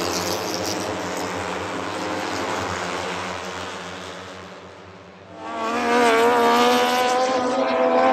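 MotoGP racing motorcycles passing at speed on the circuit: one bike's engine fades away, then about five seconds in another comes in loud, its engine note rising and staying high.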